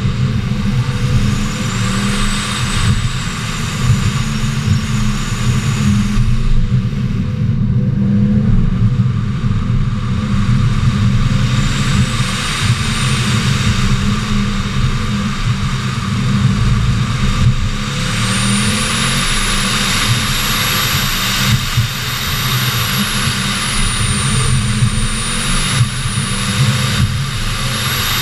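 2015 Subaru WRX STI's turbocharged 2.5-litre flat-four running hard through an autocross run, its revs climbing and dropping as the car accelerates and slows between cones, over a steady rush of wind and road noise.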